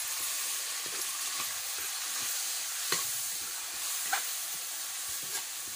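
Onion, tomato and spice masala sizzling in mustard oil in a kadai while a spatula stirs it, a steady hiss with two sharp clicks about three and four seconds in.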